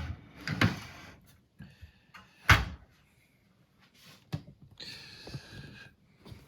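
Handling noise from a scrolling LED display's casing and parts being moved during disassembly: a few knocks, the loudest about two and a half seconds in, then a short scraping rustle around five seconds.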